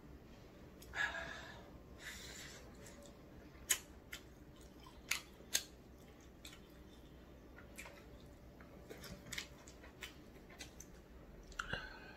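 Mouth sounds of chewing tteokbokki rice cakes, with scattered sharp clicks of wooden chopsticks and a plastic spoon against the takeout tray.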